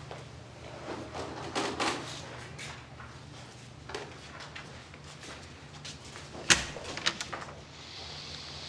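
Clothing rustling and handling noises from a pat-down search, then a sharp clack about six and a half seconds in, followed by a few lighter clicks, over a low steady hum.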